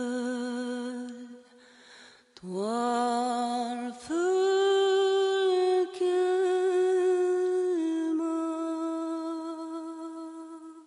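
A single voice singing long held notes without accompaniment. It slides up into the notes, pauses briefly about two seconds in, and fades away near the end.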